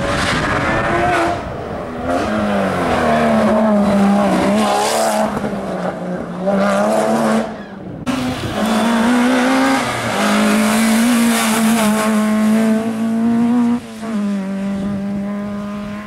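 Rally car engines at full throttle on a tarmac special stage, revving up and dropping sharply at each gear change as the cars pass one after another. The sound breaks off abruptly about eight seconds in and a second car takes over.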